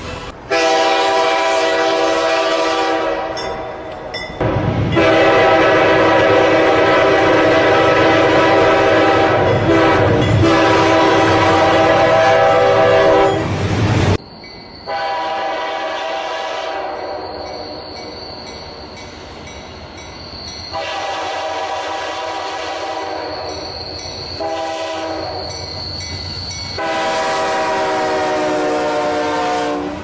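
Train horns sounding long, steady blasts in a series of spliced clips, switching abruptly from one horn to the next; the loudest blast is held for about nine seconds before a sudden cut to a quieter horn.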